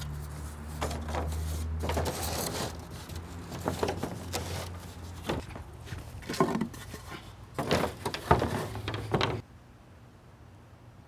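Long thin wooden boards knocking and clattering against each other and the sawhorses as they are handled and laid down, in a string of sharp knocks. The knocking stops suddenly about nine seconds in, leaving only a faint background.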